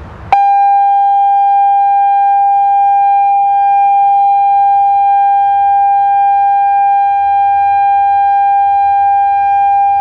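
Genasys LRAD DS-60XL loudspeaker array sounding its alert tone for an outdoor emergency warning system test: one steady, loud tone at a single pitch that starts abruptly about a third of a second in and holds without rising or falling.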